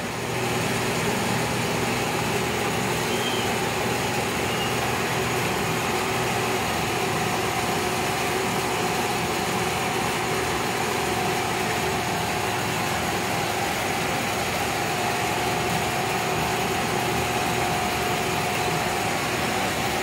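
Steady mechanical hum of a running motor, even in level, with a faint steady whine above it.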